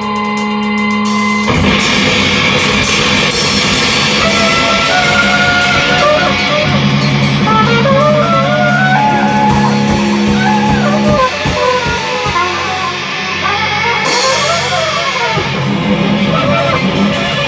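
Live improvised psychedelic rock on electric guitar and drum kit. A held droning chord gives way about a second and a half in to busy drumming under sustained guitar, with melodic lines that bend and slide in pitch.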